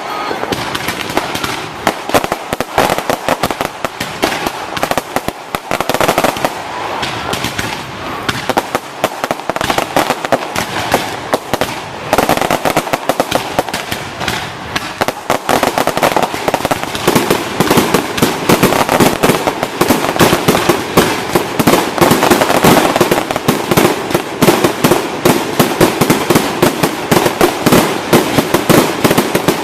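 Fireworks display: a rapid, continuous crackle of many small bursts and pops. It grows louder and denser about halfway through.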